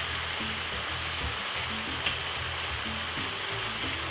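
Beef, carrots and peppers sizzling steadily in a frying pan, with background music carrying a repeating low bassline.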